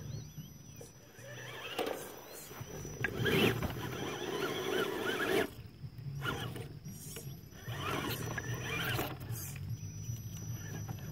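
Axial AX10 Deadbolt RC rock crawler's electric motor and metal-geared transmission whining in spurts, starting and stopping as the truck is driven over rough ground.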